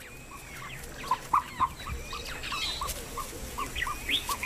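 Ostrich chicks peeping: a steady run of short, same-pitched peeps, about three a second, with higher chirps scattered among them.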